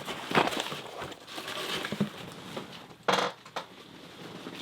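Cardboard box and packing material being handled: rustling and scraping with small knocks, and one louder rustling scrape about three seconds in.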